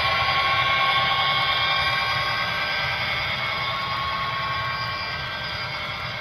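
Model train of a Union Pacific SD70M diesel locomotive and coal hoppers running past on the track, a steady whine with a low rumble that fades slowly as the train moves away.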